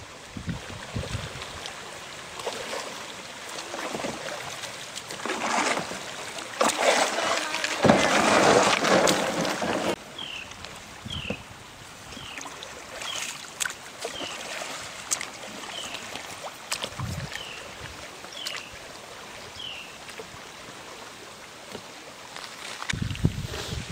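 Kayak paddling on a shallow river: paddle strokes and water splashing around the hull, louder for a few seconds in the middle. After that comes a run of about ten short, high, falling chirps, spaced under a second apart.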